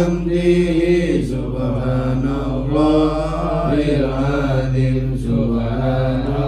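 A group of men chanting Arabic dhikr together in long, drawn-out lines, led over a microphone and loudspeaker, with a steady low electrical hum underneath.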